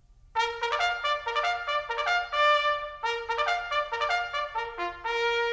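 Background music: a short, lively jingle of quick pitched notes that starts just after the beginning and ends on a held note near the end.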